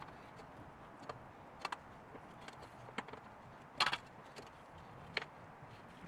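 A handful of sharp, irregular knocks and taps on wood from framing work, the loudest a quick double knock about four seconds in.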